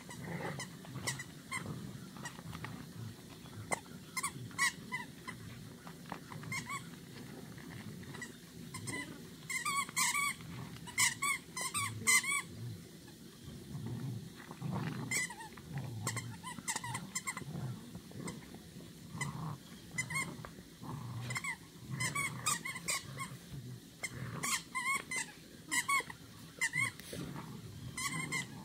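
Saint Bernard puppies growling low while playing tug of war over a toy, with clusters of short, high squeaks, the busiest about a third of the way in and again near the end.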